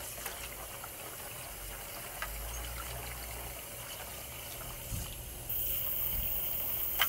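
Kitchen tap running into a basin of water in a sink, with the splashing and sloshing of hands rubbing a whole raw chicken under the stream. The water sound grows a little louder near the end.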